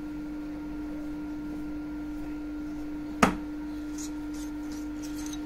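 A single sharp metallic click with a brief ring about three seconds in, as an 8 mm stainless steel rod is freed from a lathe collet and drawn out, followed by a few faint ticks. A steady low hum runs underneath.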